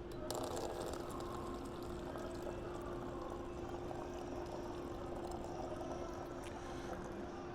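Room-temperature water running from a drinking-water dispensing machine and filling a container. It starts a moment in and flows steadily, over a steady low hum.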